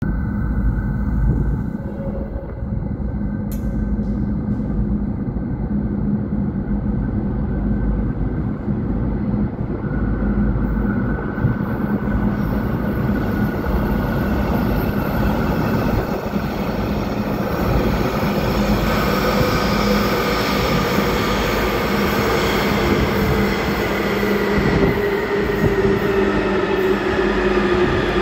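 Metro train approaching through a tunnel: a continuous low rumble with a steady hum, joined from about ten seconds in by a growing hiss of wheels on rail. Near the end an electric whine falls slowly in pitch as the train slows.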